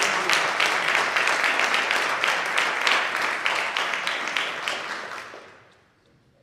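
Audience applauding, the clapping dying away after about five seconds.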